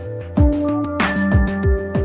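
Electronic background music with a steady beat: punchy kick drums and sharp snare-like hits under held synth notes.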